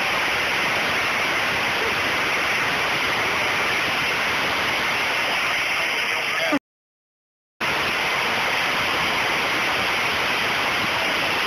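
Loud, steady rushing noise with no distinct hits or pitch. It cuts out suddenly to silence for about a second around six and a half seconds in, then resumes unchanged.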